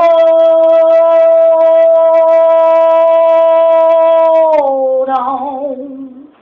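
A woman singing unaccompanied, holding one long, steady note on 'hold' for about four and a half seconds, then dropping a step lower with vibrato and fading out.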